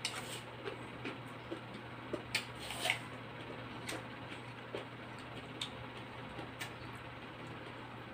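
Close-up eating sounds of a raw apple: a bite, then chewing with scattered crisp crunches, the sharpest a little past two seconds in and just before three seconds in. A faint steady low hum runs underneath.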